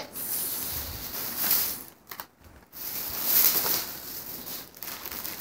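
Rustling and handling noise as purchases are rummaged through and picked up, with a brief pause a little after two seconds in.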